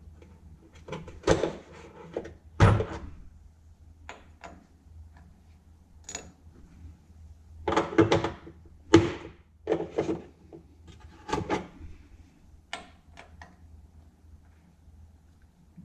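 Irregular metallic clanks, clicks and knocks of a steering wheel puller and its bolts being handled and tried in place at a car's steering column. The loudest knocks fall about a second in, near three seconds, and around eight to nine seconds.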